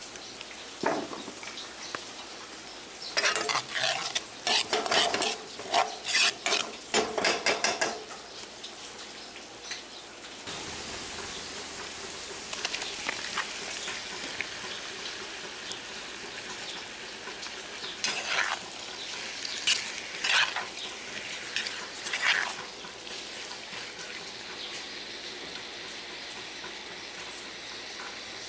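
Chopped onion and garlic sizzling in oil in a wok, with a wooden spatula scraping and knocking against the pan in quick strokes for several seconds. Later, a few more knocks and scrapes come as chunks of raw pork go into the hot oil, and the frying hiss goes on.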